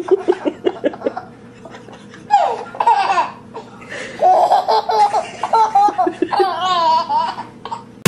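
Baby laughing: quick rhythmic bursts of laughter in the first second, then several longer high-pitched laughs, one sliding down in pitch a little over two seconds in.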